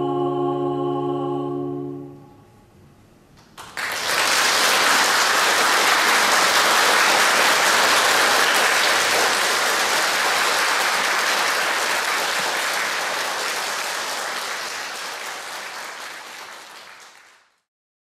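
The last held chord of the music dies away about two seconds in. After a brief pause an audience breaks into steady applause that goes on for more than ten seconds, fades, and cuts off just before the end.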